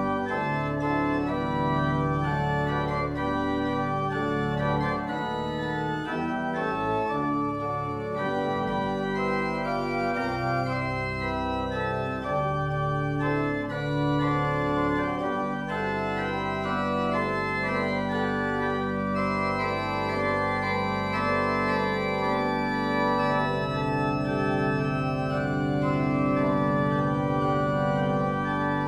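Church pipe organ playing slow, sustained chords, with a low bass note held steadily through the second half.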